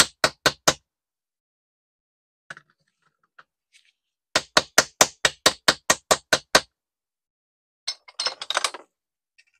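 Quick sharp taps, about five a second, of a hammer on a small socket seating a lock washer on a string trimmer's recoil starter shaft: a few taps at the start and a longer run of about a dozen in the middle. A short clatter near the end.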